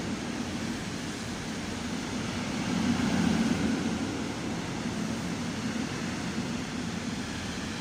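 Steady hum and rushing noise of a red regional double-deck train standing at the platform with its equipment running, swelling slightly about three seconds in.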